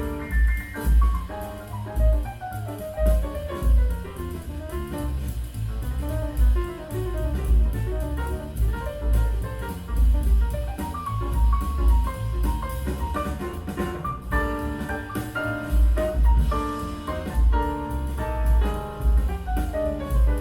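Jazz-style recorded music played back through a pair of Fyne Audio F700 floorstanding loudspeakers, with strong, recurring bass notes under a melodic line.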